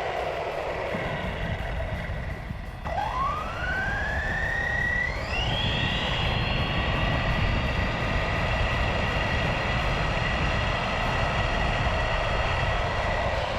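GoolRC 4800KV brushless RC motor whining as the truck accelerates: the pitch climbs steeply about three seconds in, then holds high and steady at speed, over a low rush of wind and tyres.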